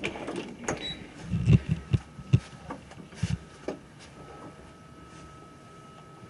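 Muffled knocks, bumps and rubbing from a handheld camera being moved along a wall, with the loudest thumps bunched in the first half, then a quieter stretch with a faint steady hum.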